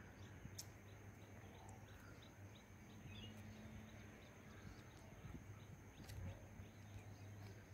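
Near silence: faint outdoor ambience with soft scattered ticks and a couple of faint bird chirps.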